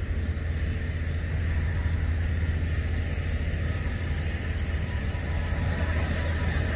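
Kubota L5018 tractor's diesel engine running steadily under way, a low even drone.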